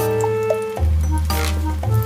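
Background music: a looping instrumental with held notes over a bass line that changes about every two seconds, and a bright swell once in the middle.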